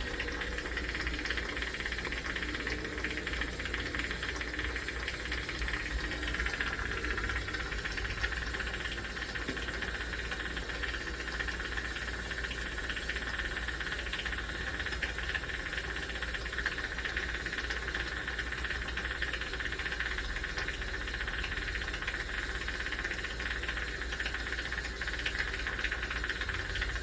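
Jeweler's soldering torch flame hissing steadily while it heats a necklace link to flow the solder, over a low hum.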